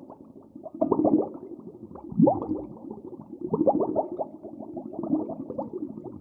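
A large animal's low grunting calls over a rough, continuous rumble, with several short calls that rise in pitch, the loudest about a second and two seconds in.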